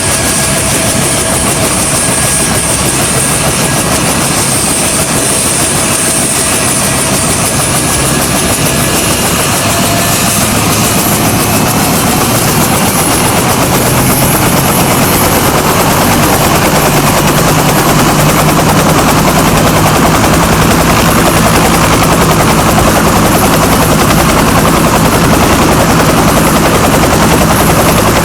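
Bell UH-1H Huey's Lycoming T53 turbine and two-blade main rotor spinning up: a turbine whine slowly rising in pitch, with the rotor's beat growing louder and heavier about halfway through.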